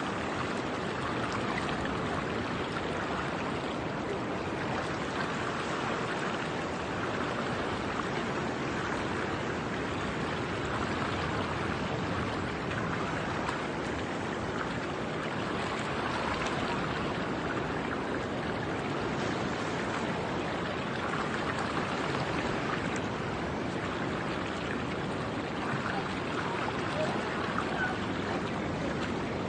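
Steady rushing of ocean surf and sea water washing around a rock pool, an even roar with no breaks.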